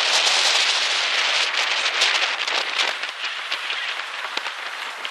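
Storm noise near a tornado: a steady rushing hiss dense with fine crackles, from wind and rain, easing a little toward the end.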